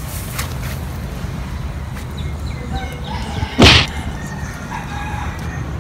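A fishing rod whipped sharply through the air in a strike to set the hook: one loud swish about three and a half seconds in, over a steady low background rumble.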